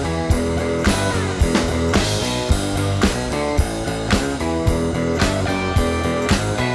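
Background music: rock with guitar and a steady drum beat.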